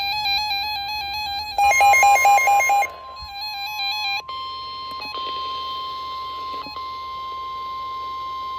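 Several NOAA weather radios receiving an EAS alert: the warbling, buzzy SAME digital header, a quick run of about five beeps from one radio about two seconds in, then the steady 1050 Hz weather-radio warning alarm tone held for the rest, with other radios' alert tones joining in a few seconds later.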